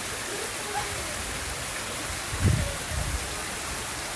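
Steady rush of water pouring from stone spouts into a bathing pool, with a brief low thump about two and a half seconds in.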